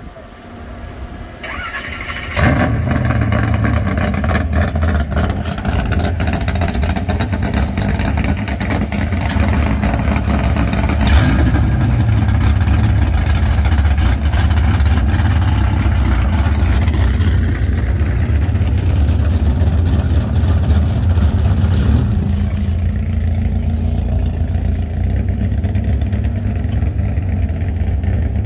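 Chevrolet COPO Camaro drag-race car's V8 engine starting up about two seconds in, then running steadily and loudly at idle.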